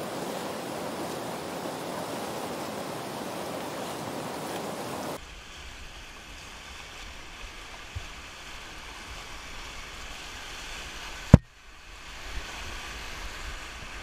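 Steady rush of whitewater river rapids. About five seconds in the sound cuts to a duller, muffled rush with more low rumble as the board-mounted camera takes over, and one sharp, loud knock stands out near the end.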